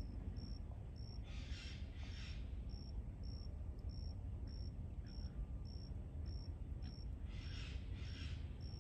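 Outdoor ambience: low wind rumble on the microphone, with an insect chirping a short high note about twice a second. Twice, about a second in and near the end, comes a pair of short harsh hissy calls.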